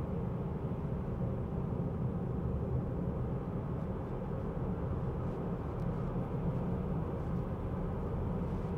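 Steady tyre and road noise heard inside the cabin of a Tesla Model 3 Highland electric car while driving: an even, low rumble.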